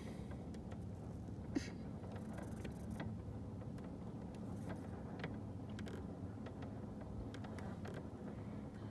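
A steady low mechanical hum with a few faint clicks and taps.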